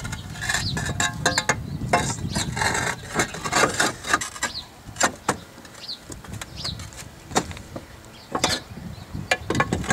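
Roof tiles knocking and scraping against one another and against the battens as they are handled and set back in place along a roof valley: irregular hard clacks with short scrapes between them. A few bird chirps sound in the background.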